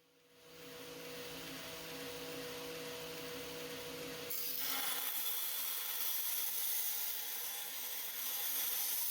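Power grinder spinning up and running with a steady hum. About four seconds in the sound turns louder and brighter as the stainless-steel knife blade is ground against it to reprofile the edge.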